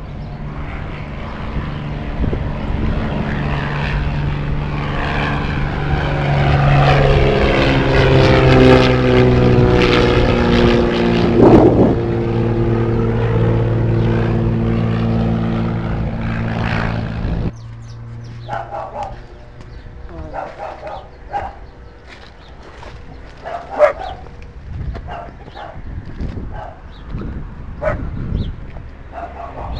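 Propeller engine of a low-flying crop-spraying plane passing overhead, its drone growing louder and sliding down in pitch as it goes by, loudest about halfway through its pass. About 17 s in it cuts off abruptly, leaving a quieter stretch with short sharp sounds.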